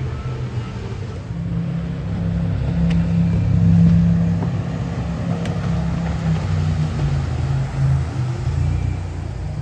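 Jet boat engine running at speed: a low drone that swells over the first few seconds as the boat races past, then slowly fades as it moves away.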